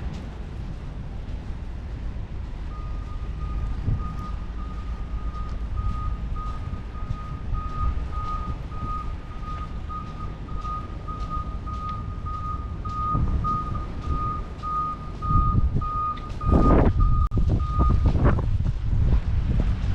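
A vehicle's reversing alarm beeping in an even, steady series over a low rumble, stopping near the end. A loud rushing surge comes in just before the beeps stop.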